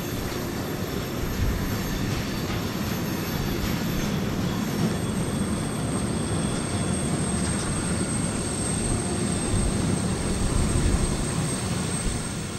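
BNSF freight train rolling past with a steady low rumble; about a third of the way in, a thin, steady high-pitched wheel squeal joins and holds.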